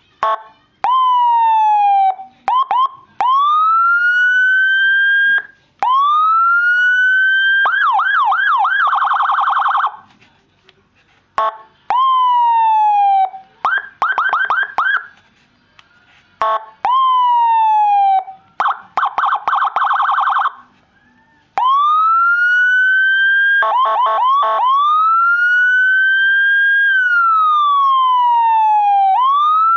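Electronic vehicle siren with Whelen and Senken tones, cycling through its patterns: slow rising wails, falling sweeps and fast warbling yelps. Each tone is switched to the next every few seconds, with a few short pauses between.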